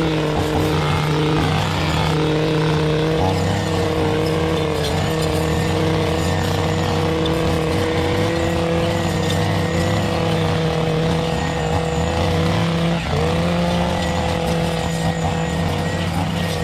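Small engine running at a steady high speed, its pitch dipping briefly about thirteen seconds in before recovering.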